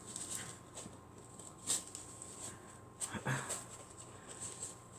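Faint taps, clicks and light handling sounds of fabric-covered craft pieces being fitted together, with one clearer click just under two seconds in.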